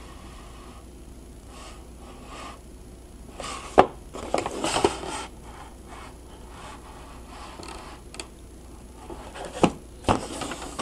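Cardboard model-kit box being handled and turned over: rubbing and scraping, with a sharp knock about four seconds in and another near the end.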